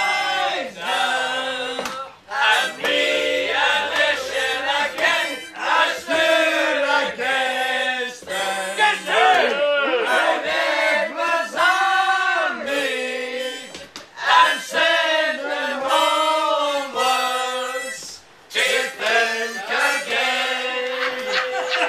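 A busload of passengers singing a song together, loud and ragged, along to a harmonica (mouth organ), with short breaks between lines.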